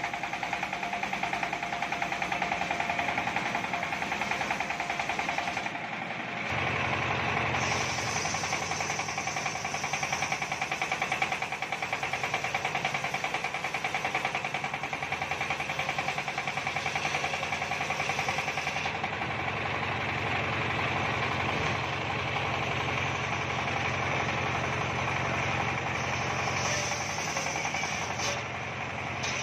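Homemade circular sawmill running steadily, its large toothed blade cutting through wood with a continuous mechanical drone. The sound shifts a little over six seconds in, and a higher whine comes and goes twice as the cut goes on.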